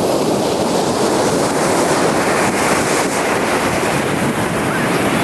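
Ocean waves breaking and washing up a beach in a continuous rush of surf, swelling about halfway through.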